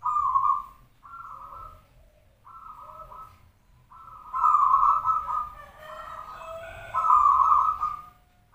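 Zebra dove (perkutut) singing: a run of short, rolling coos at one pitch, given in phrases with brief pauses between them. The loudest coos come at the start, about halfway through and near the end.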